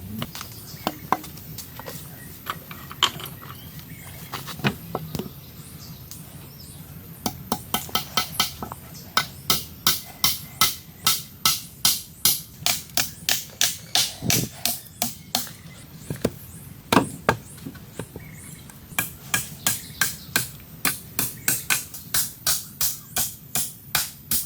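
A tool striking wood in rapid, evenly spaced blows, about two to three a second. A few scattered knocks come first, then two long runs of strikes with a short pause between them.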